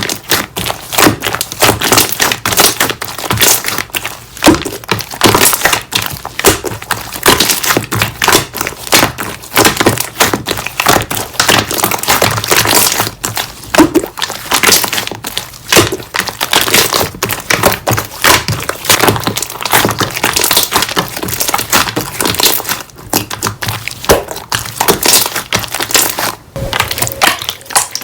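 Slime being squeezed and pressed by hand, giving a dense run of crackling, popping clicks.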